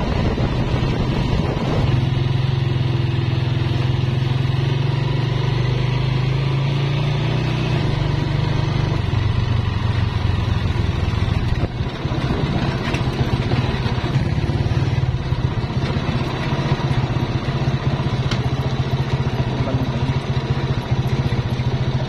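Honda TMX motorcycle's single-cylinder four-stroke engine running steadily while being ridden along a road; the engine note drops slightly about eight seconds in.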